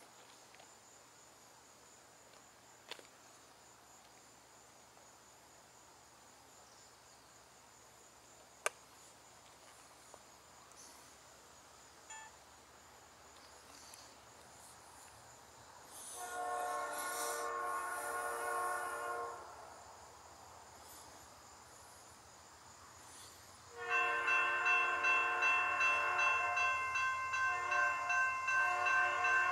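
Approaching Norfolk Southern GE AC44C6M diesel locomotive's air horn sounding for a grade crossing: one long blast of about three seconds a little past halfway, then after a pause a second long blast that starts near the end and is still going. Before the horn, a faint steady high insect buzz.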